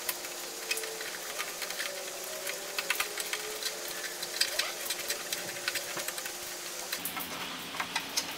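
Irregular small crackles and clicks of black electrical tape and wires being handled while a soldered wire splice is taped up and tucked away, over a faint steady hiss.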